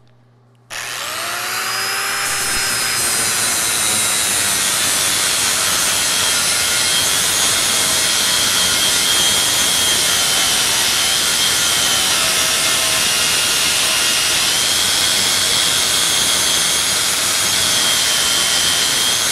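Electric angle grinder with a sanding disc switching on under a second in and spinning up, then running steadily with a high whine as it lightly sands the high spots off a TIG-welded hole fill in an aluminum bar.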